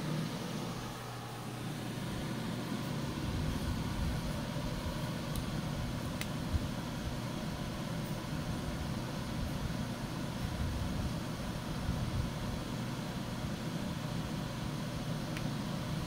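Pelonis Safe-T-Furnace 1500 W ceramic disc space heater running: a steady fan whir with a low hum. A single short click about six seconds in.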